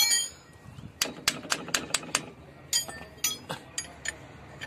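Metal tools clinking and knocking against a car's rear brake parts: a loud sharp clack at the start, then about a dozen irregular ringing clicks over the next few seconds, thinning out near the end.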